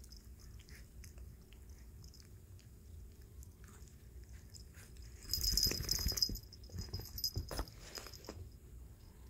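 A Shih Tzu–Bichon Frise puppy chewing and nibbling at a hand, with soft little mouth clicks. About five seconds in there is a brief, louder scuffle of rustling and thumps, then a few scattered clicks.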